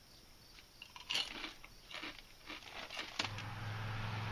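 A person crunching and chewing a kettle-cooked potato chip, with a few sharp crunches after about a second. Near the end a steady low hum begins and becomes the loudest sound.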